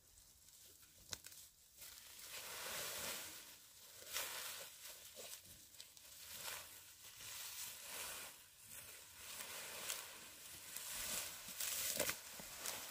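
Freshly cut long grass rustling and crackling as it is gathered into a large bundle and hoisted onto the back, with irregular swishes and sharp snaps of stems.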